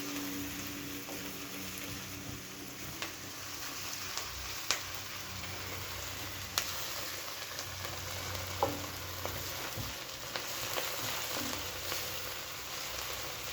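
Chopped onions sizzling steadily as they fry in oil in a pan, cooked to the point of turning translucent. A few sharp clicks of the stirring utensil against the pan come through.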